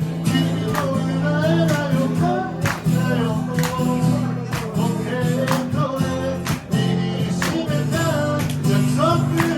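Acoustic guitar strummed with sharp strokes about once a second under sustained chords, with a voice singing a melody over it.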